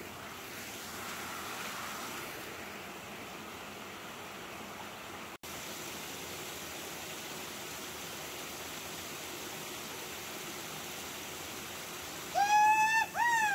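Waterfall and mountain stream rushing steadily. Near the end comes a loud, high-pitched call in two notes: the first held level, the second rising and then falling.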